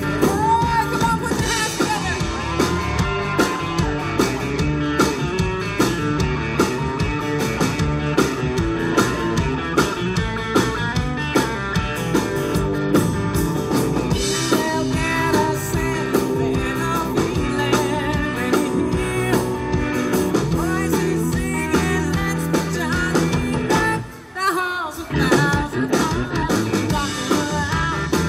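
Live country-rock band playing a song, with a lead vocal over acoustic guitars, electric guitar, electric bass and drums. Near the end the band stops for a moment, then comes back in.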